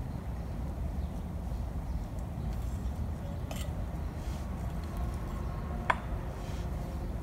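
A metal hand trowel clinks once against a terracotta pot with a brief ring, about six seconds in, over a steady low rumble.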